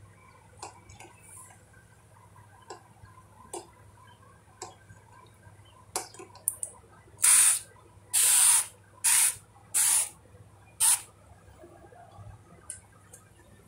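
Five short, loud hissing bursts in quick succession, each under a second, like spraying. Scattered light clicks and taps come before them.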